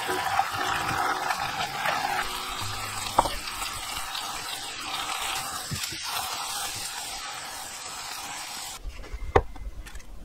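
Sweet soy braising sauce bubbling and sizzling in a frying pan as fish cake rolls and sausages are boiled down in it, a steady hiss that stops suddenly near the end. Then comes a single sharp crack as an egg is cracked into a glass measuring cup.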